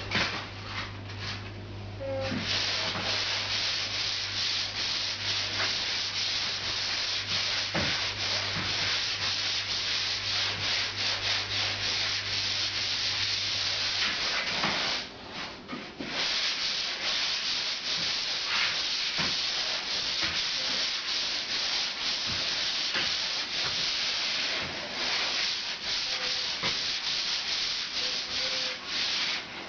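Plaster ceiling being hand-sanded with a sponge sander: continuous rasping strokes, with a short pause about halfway through. It is the smoothing stage that takes out scratches and pits in the plaster.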